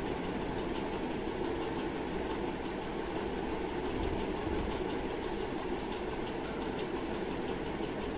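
A steady, even background hum with no distinct events.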